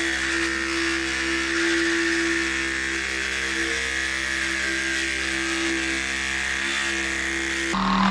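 A motor running steadily at one pitch, a constant hum with a thin whine above it, cut off suddenly near the end.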